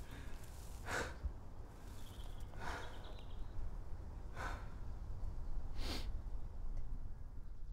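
A man's heavy, distressed breathing: four loud breaths about a second and a half apart, over a faint low rumble.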